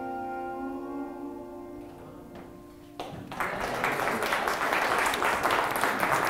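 Instrumental background music with held notes, fading and stopping about three seconds in; then people in the room applauding.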